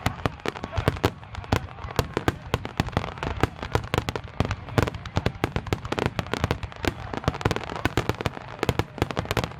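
Fireworks bursting in a rapid, continuous barrage of sharp bangs, several a second.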